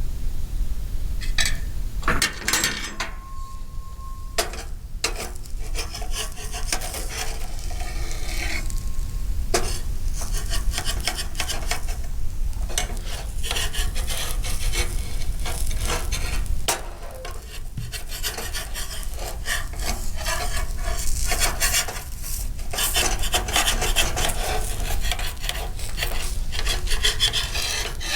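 Spatula scraping and rubbing on a dosa pan in many short, irregular strokes as the dosa is cooked, over a low steady rumble that drops away about two thirds of the way through.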